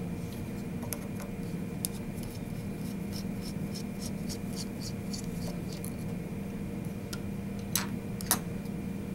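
Faint metallic ticks and clicks of a 1.5 mm hex wrench backing the tiny screws out of a spindle's lower bearing plate, with two sharper clicks about a second before the end. A steady low hum runs underneath.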